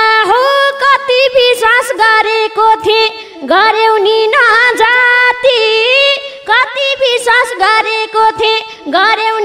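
A woman singing a dohori verse into a microphone: a high voice holding long notes that bend and slide, with short breaks between phrases.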